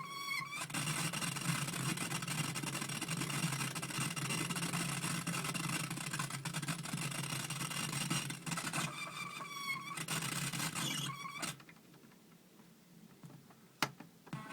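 Circuit-bent electronic sound effects toy playing a harsh, noisy buzzing effect with a low hum for several seconds. A pitched electronic tone then glides upward, and the sound cuts off about three seconds before the end, with a single click near the end.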